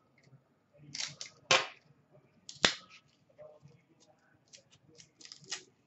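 Hands working at a trading card and its plastic packaging, making scattered sharp clicks and scrapes. The louder snaps come about a second and a half in and about a second later, with lighter ticks near the end.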